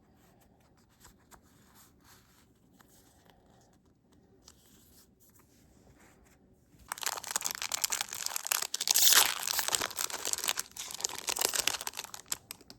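Foil wrapper of a Pokémon TCG booster pack being torn open and crinkled: faint handling sounds, then about seven seconds in a loud spell of tearing and crinkling foil lasting about five seconds.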